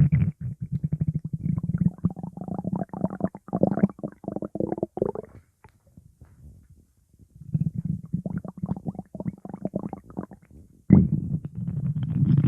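Stomach growling: bouts of rapid, bubbly gurgling rumbles, stopping for a second or two about six seconds in and again just before a stronger rumble near the end.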